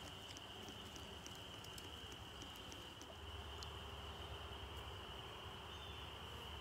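Faint, steady high-pitched chorus of distant calling creatures, with a few faint ticks and a low rumble that grows about three seconds in.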